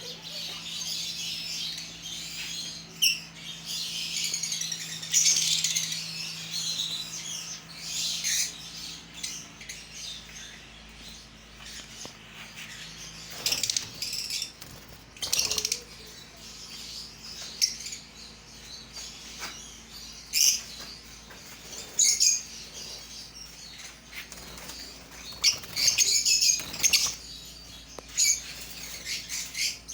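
A flock of caged parrots chirping and chattering without a break, with short sharp flutters of wings and clicks scattered throughout.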